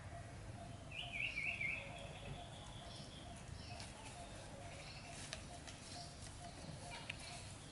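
A brief, high, wavering chirp from an animal about a second in, over faint outdoor background with a few light clicks and rustles.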